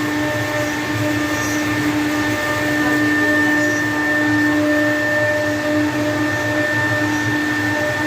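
CNC router running steadily while cutting a 3D molding: a constant spindle whine over a rushing noise.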